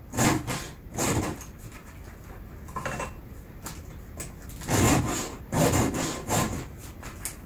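A hand file stroked across the cutter teeth of a chainsaw chain to sharpen them. There are several short rasping strokes with pauses between them, the strongest coming in two groups.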